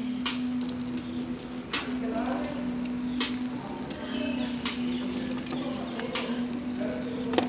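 Meat fat sizzling on a parrilla (asado grill), with sharp crackles and pops every second or so, over a steady low tone that breaks off now and then.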